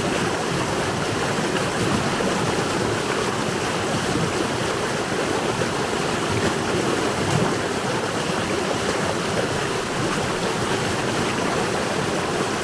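Running water in a stream in winter, a steady, continuous rushing and babbling.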